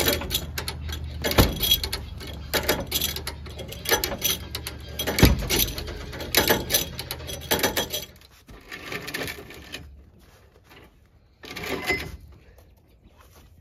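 Repeated metal clanks and clicks from winch cable and rigging being handled, over a low steady hum that stops about eight seconds in. After that, only a couple of brief rustling bursts.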